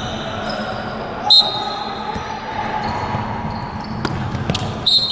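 Ball game on a hard indoor court, echoing in a large hall: a ball thudding on the floor, with a loud sharp knock about a second in and a cluster of knocks near the end.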